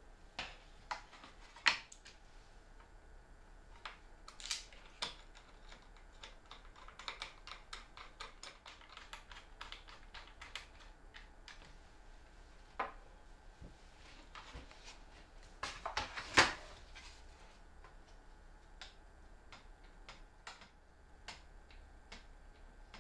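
Irregular light clicks and knocks of plywood and aluminium parts being handled and set down on a workbench, with two sharper knocks about two seconds in and about sixteen seconds in.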